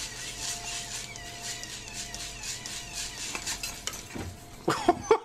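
Motorized squirrel-proof bird feeder spinning its perch ring under a squirrel's weight: a steady rattling whir with a faint motor hum. A few louder sharp sounds come near the end.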